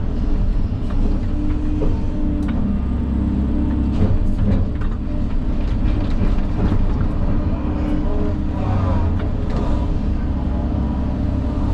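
Engine of an earth-moving machine running steadily, with scattered knocks and scrapes.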